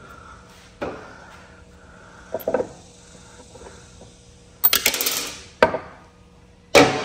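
Small metal mower parts and tools clinking and clattering as they are handled and set down. There are several separate knocks, a longer rattling clatter about two-thirds of the way through, and a sharp clank near the end.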